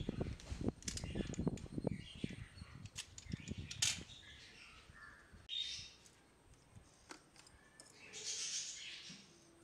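Utility knife trimming a plastic part: a quick run of short scraping cuts and taps, then a sharp click about four seconds in. Small plastic bracket parts and servos rustle and knock as they are handled near the end.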